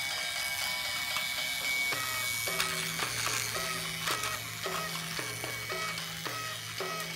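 Quiet background music: a repeating pattern of short notes over an alternating two-note bass line comes in about two seconds in, over a steady hiss.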